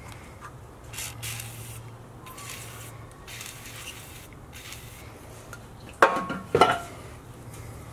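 Small metal parts being handled by hand: light rustling, then two sharp metallic clinks about half a second apart near the end, over a low steady hum.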